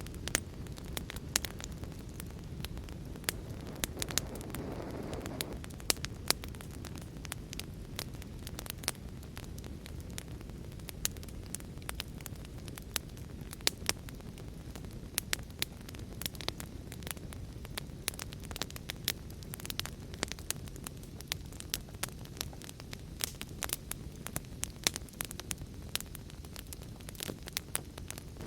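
Wood fire crackling, with frequent sharp pops and snaps over a steady low rush of heavy rain. A brief low swell rises and fades about four to five seconds in.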